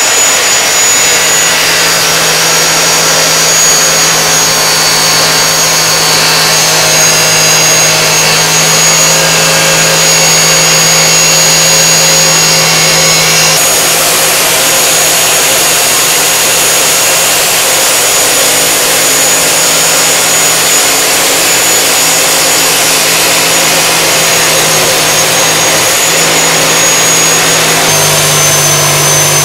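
14-inch high-speed abrasive cut-off saw, its thin abrasive wheel grinding through steel square tubing: a loud, continuous grinding with a steady high whine from the spinning wheel. It gets harsher about halfway through.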